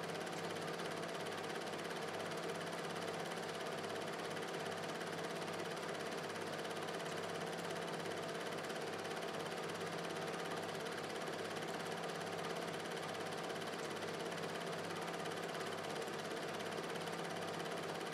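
Steady mechanical hum with hiss over it and a regular low pulsing, unchanging throughout.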